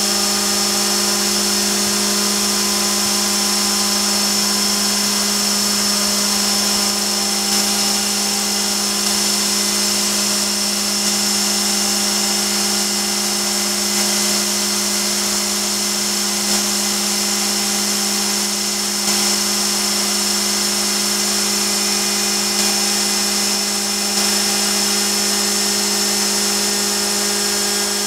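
Gorton 0-16A Super Speed mill spindle running at its top speed of about 12,000 RPM with a 1-1/4-inch router bit on a roughing pass in Claro walnut, a steady high-pitched whine. A shop vac runs steadily alongside to catch the dust.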